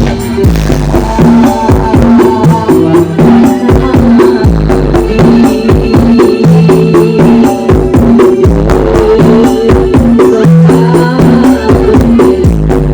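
Very loud music blasting from a giant 'horeg' parade sound system, with deep, heavy bass notes under a fast, steady percussion beat.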